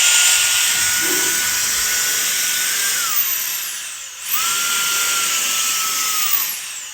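Handheld battery-powered high-speed turbo fan running with a high motor whine over a loud rush of air. Its pitch drops about three seconds in, the sound cuts out briefly about four seconds in, then it spins up again and winds down near the end.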